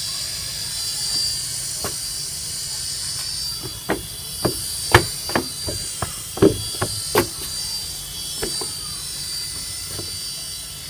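Toy RC helicopter's small electric motor and spinning rotor blades whirring steadily with a high whine. A run of sharp knocks in the middle, from about four to seven seconds in, as it bumps along the floor.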